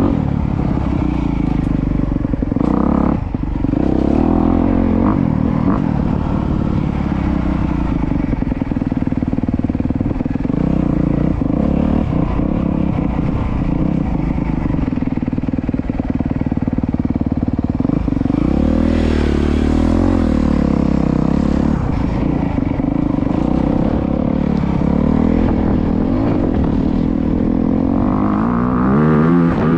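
Honda CRF250R dirt bike's single-cylinder four-stroke engine running while being ridden, its note rising and falling with the throttle, with a sharper rev-up near the end.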